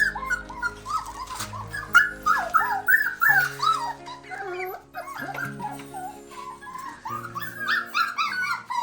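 Dogs whimpering and whining in many short, high cries that rise and fall, over background music with steady held notes.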